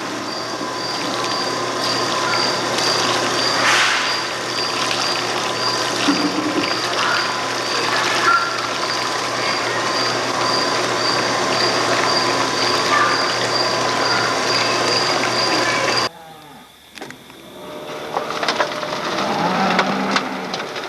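Milking machine running in a dairy barn: a steady vacuum-line noise with a regular pulsing about twice a second, with a cow mooing now and then. The machine noise cuts off suddenly about sixteen seconds in, leaving quieter clatter.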